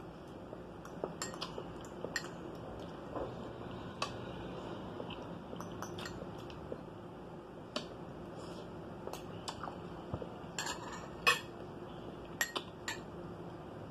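Metal utensils clinking and scraping against a small ceramic ramekin and a china plate during eating: scattered light clicks, with a cluster of louder clinks a little past the middle and a few more shortly after.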